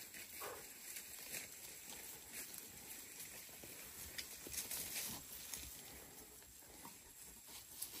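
Faint livestock sounds: a brief animal call about half a second in, then scattered rustling and small knocks as the animals move about.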